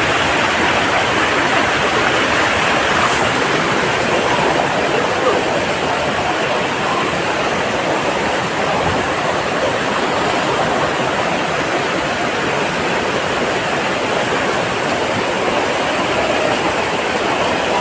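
Rushing water of a mountain waterfall and stream, a steady, even rush with no breaks.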